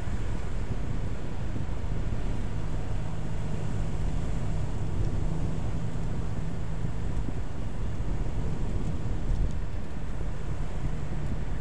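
Car driving at a steady pace, heard from inside the cabin: a steady low engine hum over tyre and road rumble.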